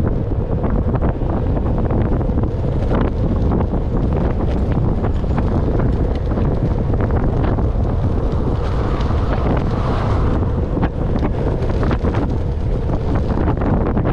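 Wind buffeting an outdoor microphone: a loud, steady rumble broken by frequent crackles.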